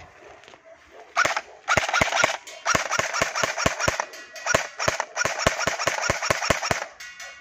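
Umarex Heckler & Koch UMP airsoft replica firing strings of rapid shots, about five a second, starting a little over a second in and stopping shortly before the end.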